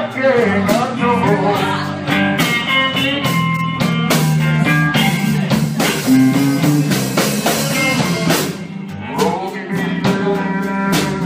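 A blues band playing live through a small PA: electric guitar over a drum kit, with a wavering lead line at the microphone near the start and again near the end.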